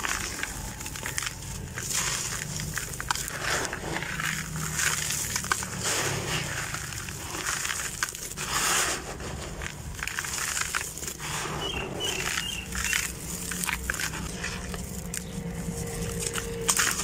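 Hands crushing and crumbling a dry, gritty block, with a continuous crackle and crunch as fine grit pours into a bucket.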